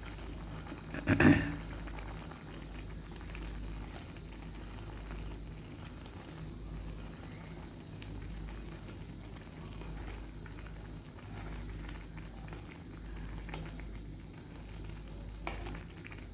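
Almost-cooked tahiri of rice and peas simmering and sizzling in a steel pot while it is stirred with a metal spoon, with faint scrapes and ticks. There is one loud clatter of the spoon against the pot about a second in.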